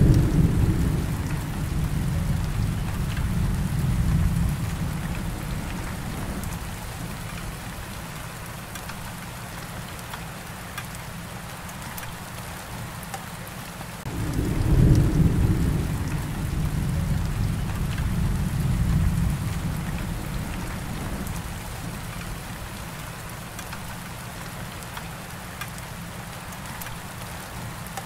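Steady rain falling with two long rolls of thunder, one at the start and another about halfway through.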